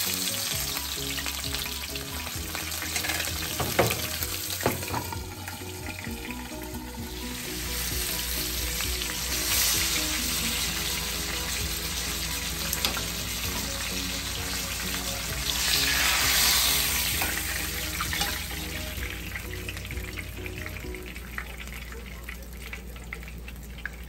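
Whole pompano frying in oil in a nonstick skillet, sizzling steadily, with a couple of sharp clicks of metal tongs against the pan a few seconds in. The sizzle swells louder around ten seconds in and again around sixteen seconds in.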